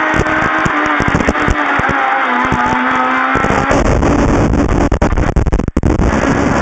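Rally-prepared Toyota Starlet with an 1800cc engine, running hard at high revs under load. The engine note holds fairly steady for about three seconds, then turns rougher and noisier, with a few brief cut-outs in level late on.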